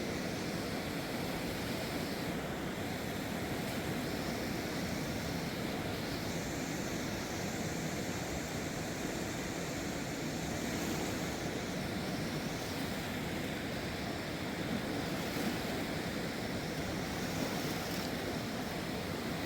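Steady rush of a river in flood after heavy rain, with no change in level.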